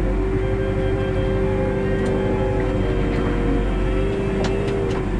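Tractor engine running steadily, heard from inside the cab, with a steady whine from the hydraulics as the crane is worked by joystick. A few sharp clicks near the end.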